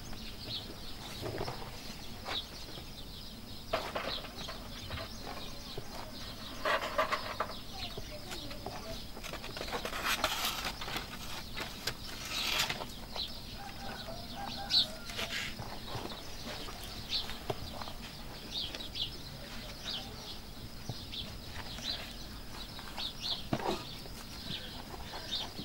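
Farmyard background of small birds chirping and a hen clucking now and then, with soft taps, rustles and scrapes of hands working bread dough and a wooden peel being slid into a mud bread oven.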